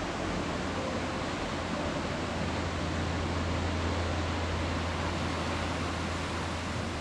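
Leutascher Ache mountain river rushing through the narrow gorge: a steady wash of water noise with a low rumble beneath.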